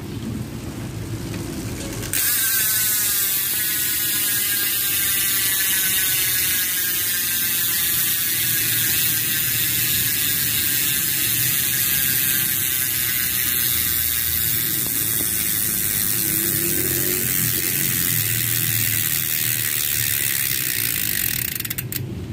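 Mountain-bike rear hub freewheeling as the spun wheel coasts: the freehub pawls ratchet with a loud, fast buzzing click. It starts suddenly about two seconds in, and the click rate slows steadily as the wheel loses speed.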